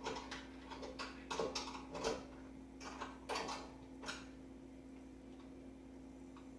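A screwdriver clicking and scraping inside a microwave oven door as it fishes for the loose door-latch spring that fell down into it. Small irregular clicks run for about four seconds and then stop, leaving a faint steady hum.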